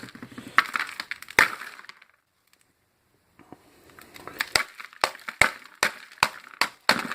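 Sharp knocks and cracks of brittle resin filler being smacked and broken out of a hollow sterling silver piece. The first bout of cracking stops after about two seconds; after a short pause a run of sharp, irregular knocks follows, two or three a second.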